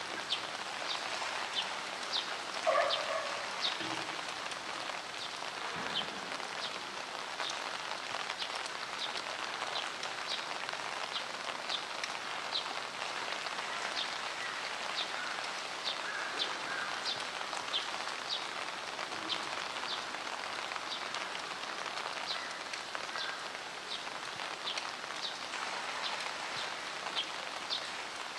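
Heavy rain falling steadily, with drops ticking at an even pace, roughly two a second. A brief higher-pitched sound stands out about three seconds in.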